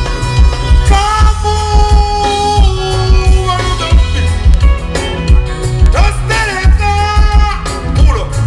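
Loud music with a steady bass-heavy beat and a voice singing over it.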